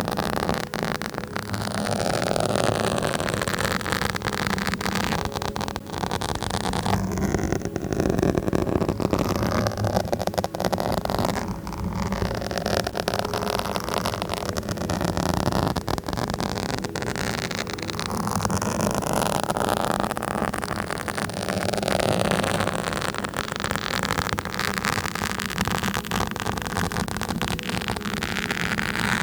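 Scratching directly on a microphone: a continuous scratchy noise with many small clicks, its texture shifting as the scratching moves.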